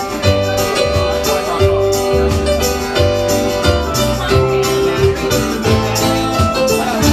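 Live band playing an instrumental passage between sung verses: a steady, even bass beat with keyboard and guitar notes over it.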